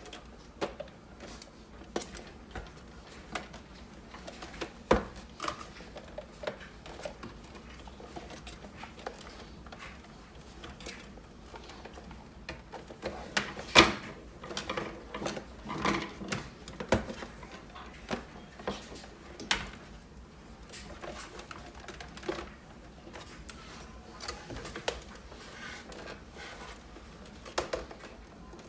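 Irregular clicks and knocks of hard plastic machine parts being handled and worked apart during disassembly of a Keurig Supreme coffee maker, with the sharpest knock about halfway through.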